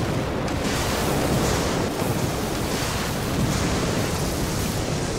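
Building explosion with fire and flying debris: a loud, steady rushing noise that starts abruptly and holds without a break.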